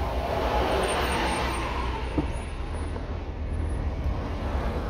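Road and engine noise heard from inside a moving car, a steady low rumble, with a city bus passing close alongside; the noise swells about a second in as the bus goes by.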